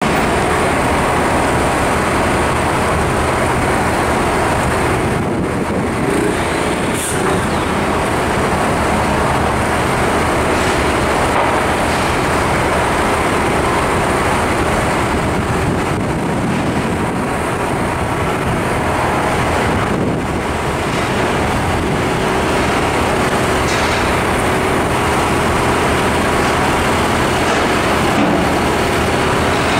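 Steady city traffic noise on a rain-wet avenue, with a heavy truck's diesel engine running.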